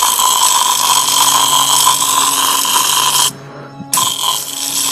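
StarQ W3 pressure washer jet blasting loose asphalt off a road surface: a loud, steady hissing spray over the machine's motor hum. It breaks off for about half a second near the end and then resumes.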